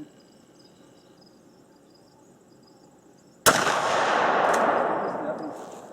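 A single shot from a 12-gauge Remington 887 pump shotgun firing a slug, about three and a half seconds in, followed by a long rolling echo that fades over about two seconds.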